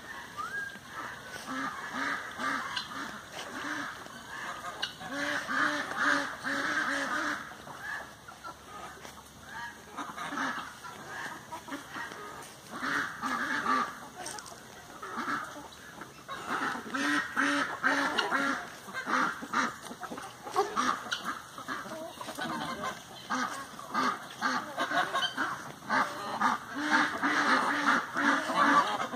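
Farm poultry calling in repeated runs of short calls, several runs one after another.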